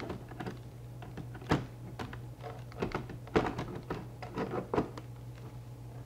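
Ultraloq UL3 smart lock's exterior lever unit being pressed and fitted against the door: a string of short knocks and clicks, the loudest about a second and a half in and again around three and a half seconds in, over a steady low hum.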